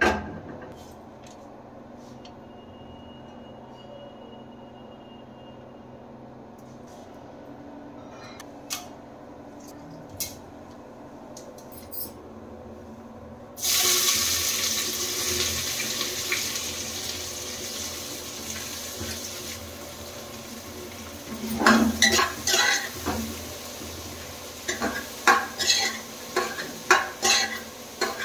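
A knock as the aluminium pressure cooker is set on the gas burner, then a low quiet stretch with a few light taps. About halfway through, sliced onions tipped into hot oil in the cooker set off a loud sizzle that slowly dies down. Near the end a metal spoon stirs the onions, clinking and scraping against the cooker's side in quick, uneven strokes that are the loudest sounds here.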